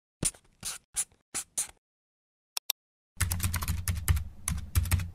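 Computer keyboard typing: about five separate keystrokes, a pause broken by two quick clicks, then a fast run of keystrokes over a low thudding for the last two seconds.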